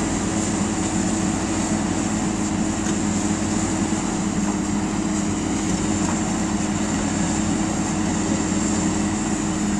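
Diesel engines of a Hitachi Zaxis excavator and an articulated dump truck running steadily: a constant, even drone with a steady hum.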